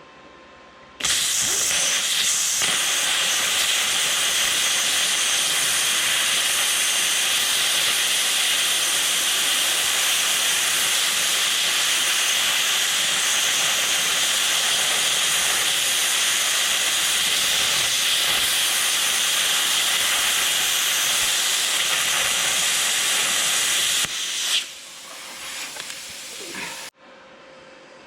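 Small 20-amp air plasma cutter, fed at about 75 psi, running with a loud steady hiss as it freehand-cuts a hole through steel. It starts about a second in and cuts off after about 23 seconds, followed by a few seconds of quieter, uneven noise.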